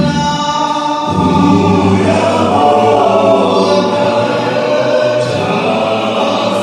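A male vocal group singing in harmony through a PA, deep bass voices under sustained chords. A new phrase starts about a second in.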